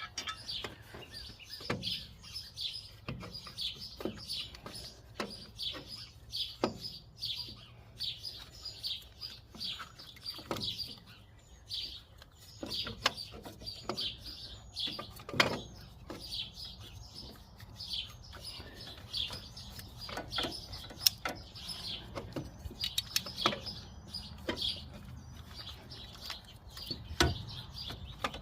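Small birds chirping continuously, with scattered sharp clicks and knocks from hand tools at work on the tractor.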